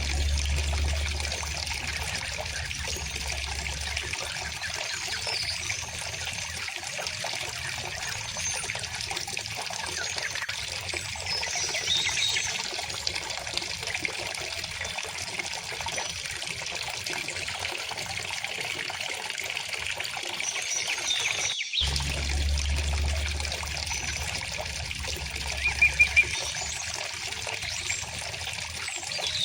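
River water flowing steadily, with birds chirping now and then above it; a quick run of three louder chirps comes about three-quarters of the way through.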